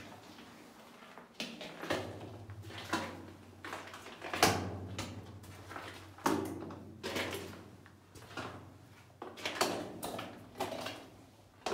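Footsteps on the rock floor of a mine tunnel, uneven, about one step a second, each with a short echo off the tunnel walls.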